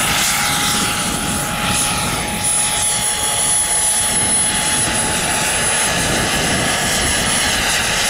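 Jakadofsky Pro 7000 model gas turbine in a scale SA 315B Lama RC helicopter running in flight: a steady high-pitched turbine whistle over the rush of the main and tail rotors.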